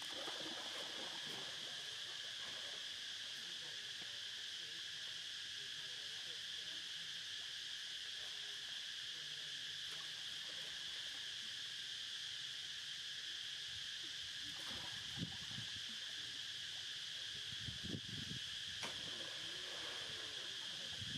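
Steady, high insect chorus droning without a break. A few soft water splashes come from macaques moving in the water later on.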